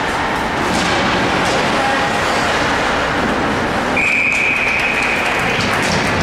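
A referee's whistle blown once in one long, steady blast about four seconds in, stopping play, over the steady noise of a hockey rink with a few knocks of sticks and puck.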